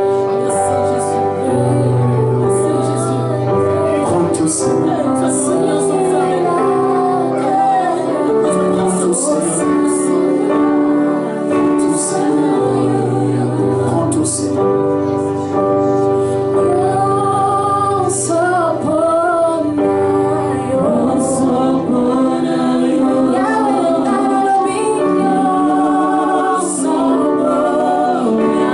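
Live gospel worship song: a woman singing the lead over held instrumental chords and a bass line.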